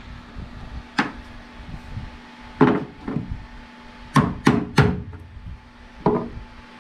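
Hammer blows on wooden framing: single strikes, then three quick blows about a third of a second apart, then one more, the way PEX tube talons are nailed to studs.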